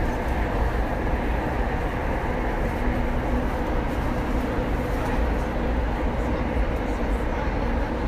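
Rinkai Line commuter train running, heard from inside the passenger car: a steady, even rumble of running noise, heaviest in the low range.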